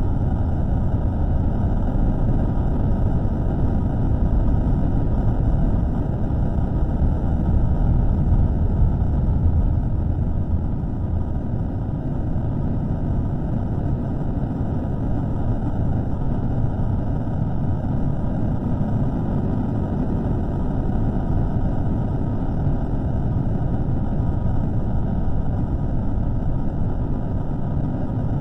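A steady, low rumbling noise with no distinct tones or events: a microphone recording slowed down to about a third of its original speed.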